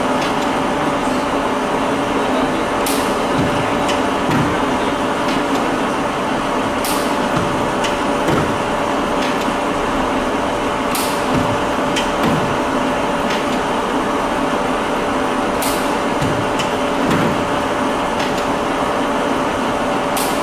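1948 Warner & Swasey No. 5 ram-type turret lathe running with a steady gear and motor hum. About every four seconds there is a sharp metallic clack as the ram is run back and forth on its capstan wheel and the turret indexes, with lighter knocks in between.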